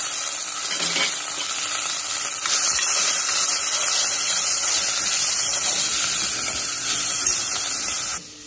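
Sliced onion, peanuts and curry leaves sizzling in hot oil in an aluminium pressure cooker, a steady frying hiss that cuts off suddenly near the end.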